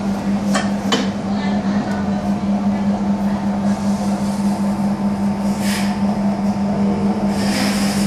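Dough divider rounder's electric motor humming steadily, with two knocks near the start and a scraping hiss late on as the plastic dough plate is slid out from under the rounding head.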